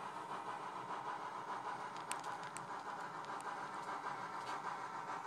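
Sound-decoder steam locomotive sound from a model train's small on-board speaker: a steady running sound with a few faint clicks.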